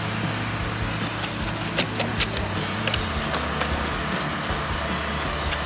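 Electric 1/10-scale RC touring cars running on an asphalt track: a steady high-pitched whir and tyre noise with a few faint rising and falling whines, and a few sharp clicks about two seconds in.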